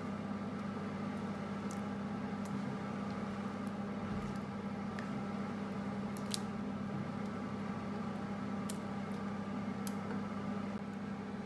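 Steady mechanical hum of a kitchen appliance, with a few faint light clicks as meat sauce is spooned onto macaroni in a stainless steel bowl.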